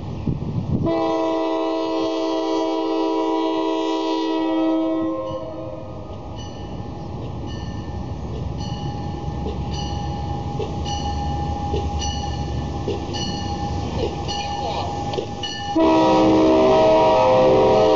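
A MARC commuter train's horn sounds a chord of several notes for about four seconds, then sounds again louder near the end. Between the blasts the grade-crossing bell rings about twice a second over the growing rumble of the approaching train.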